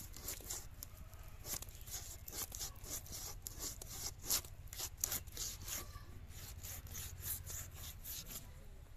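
A whole rohu being sawn through crosswise on a boti's upright curved blade: repeated short scraping strokes, several a second, as the scaly body is worked back and forth against the edge.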